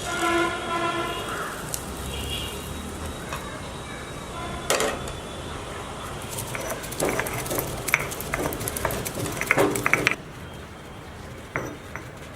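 Metal kitchen utensils clinking and knocking against pots and dishes in scattered, irregular strikes, thickest in the middle and later part. A short pitched sound comes at the very start.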